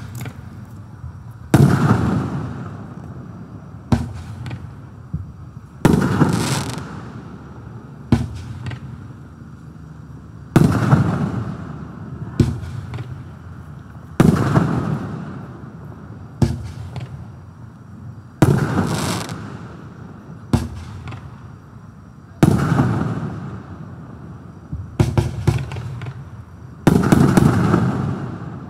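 Black Cat 'Boss' firework cake firing seven shells one after another, about every four seconds. Each is a sharp launch thump, then about two seconds later the louder break of the aerial burst, which fades out in a hiss.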